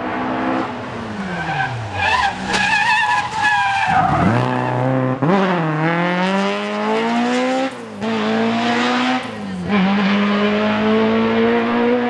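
Ford Escort Mk2 rally car braking into a tight tarmac corner, its engine note falling as it slows and its tires squealing through a slide. The engine then revs hard as the car accelerates away, shifting up through the gears about three times.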